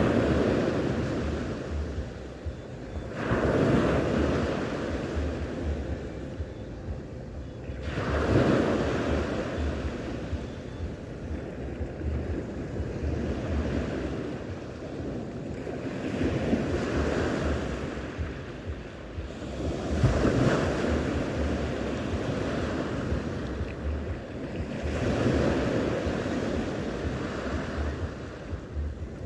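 Sea waves breaking on the shore, the wash swelling and ebbing about every four to five seconds, with wind buffeting the microphone.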